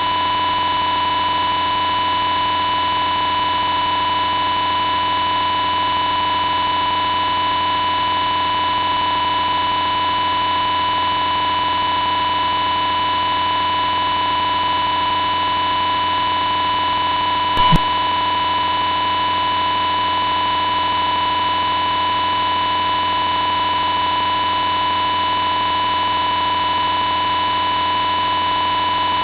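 A creepy sound effect: a steady electronic drone of many held tones, one clear middle-pitched tone standing out above the rest, unchanging throughout. A brief click about two-thirds of the way through.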